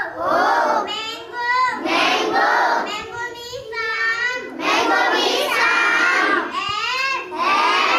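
A young girl singing a song solo, unaccompanied, with some longer held notes partway through.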